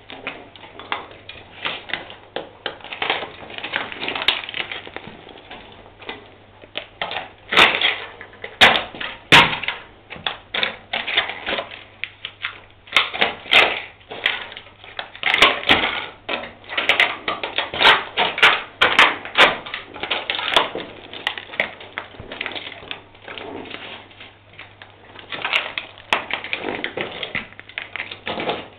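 Rapid, irregular clicking, tapping and scraping, coming in busy runs of small knocks that start and stop throughout, over a faint low hum.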